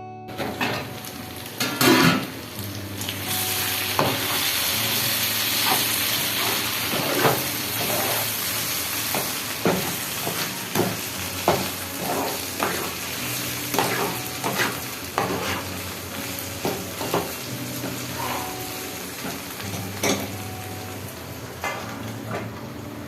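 Food frying in hot oil in a pan with a steady sizzle, while a spatula stirs it and repeatedly knocks and scrapes against the pan. A louder clatter comes about two seconds in.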